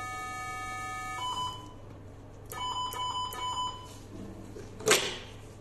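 Vessel-sealing (LigaSure-type) electrosurgical generator sounding its steady activation tone while the handpiece seals. About a second in the tone changes pitch, then a quick run of about five beeps signals the end of the sealing cycle. A sharp knock near the end comes from the handpiece being handled.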